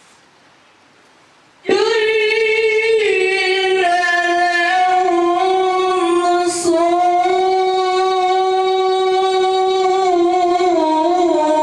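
A woman's solo voice starts suddenly about two seconds in and sings long held notes that step slowly up and down, with one short break about halfway through.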